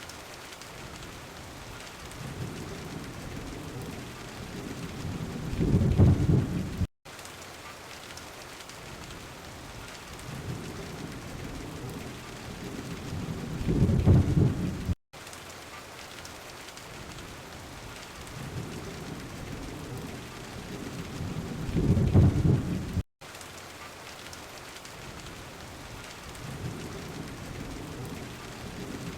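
Steady rain with a low rumble of thunder that swells and fades about every eight seconds, three times over. The rumble builds again near the end. A short recording repeated in a loop, with a split-second gap of silence just after each rumble.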